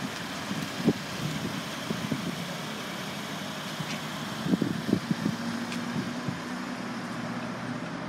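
Steady outdoor background hum of a car lot, with a low vehicle engine hum and a few soft knocks. A faint steady tone joins in over the second half.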